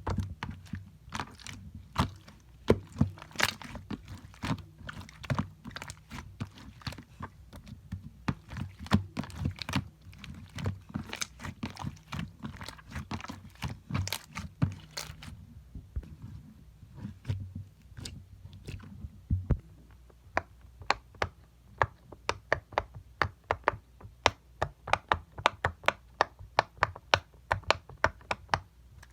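Slime being squeezed and worked by hand, giving off sharp clicks, pops and crackles. In the last third the clicks come quicker and more evenly, about three a second.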